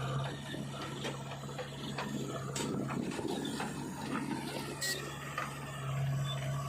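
A machine's engine running with a steady low hum, under irregular metallic clicks, clanks and knocks from working machinery.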